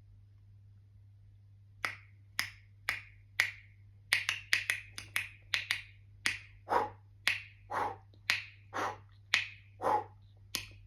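Beatboxer's mouth percussion: sharp clicking snaps start about two seconds in at about two a second, then grow into a denser beat, with longer breathy hits alternating with the clicks in the second half. A faint steady hum runs underneath.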